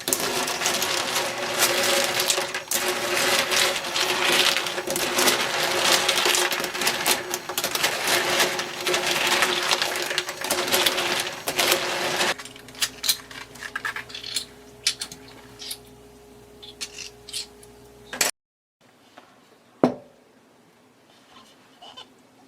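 Cockle shells clattering and rattling densely in a bowl over a steady hum. About 12 seconds in, the clatter thins to scattered clicks over the hum, and a little later it cuts off, leaving only a few faint clicks.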